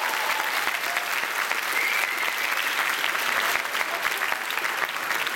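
Lecture-hall audience of students clapping, a steady dense patter of many hands.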